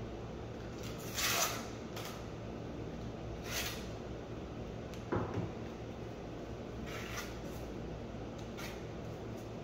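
Trowel scraping across a bare concrete floor in about six short strokes a second or two apart, the loudest about a second in, over a steady low hum.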